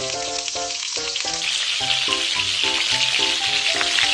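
Food sizzling in a frying pan, the sizzle growing louder about a second and a half in, over background music of short, evenly timed notes.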